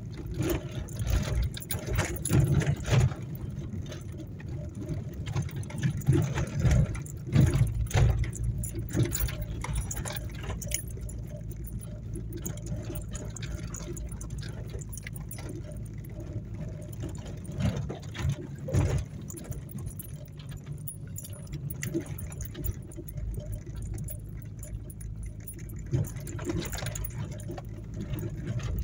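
Inside a car driven over a rough, rutted dirt road: a steady low engine and road drone, with bursts of knocking and rattling as the car jolts over the ruts, thickest in the first ten seconds and again a little past the middle.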